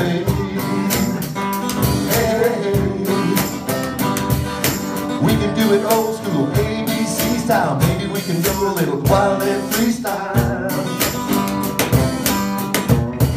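Live acoustic guitar strummed in a steady rhythm, with a male voice singing along in a country-pop song.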